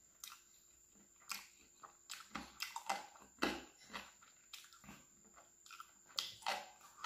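A person chewing and biting chicken masala eaten by hand, heard as a string of irregular short mouth clicks and smacks.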